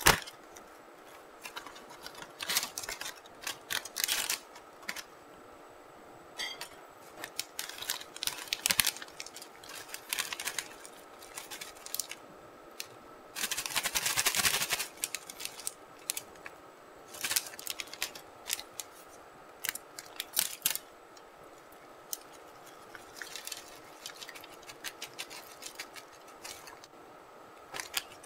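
Cardboard snack box and small plastic cookie packets handled and torn open: irregular sharp crinkles and crackles, with one longer rustle a little past halfway.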